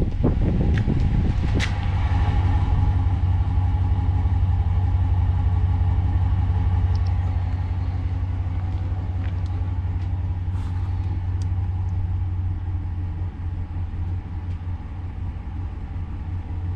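Pickup truck engine idling steadily, a deep even hum, with a few faint clicks over it.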